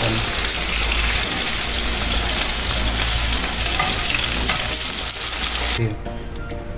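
Steady rush of flowing water, a dense hiss with a low rumble, that cuts off suddenly almost six seconds in.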